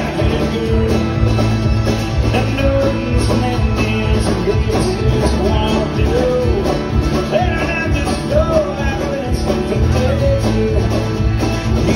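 Live country-bluegrass band playing loudly, with a fiddle bowing lines over acoustic guitar, bass and drums.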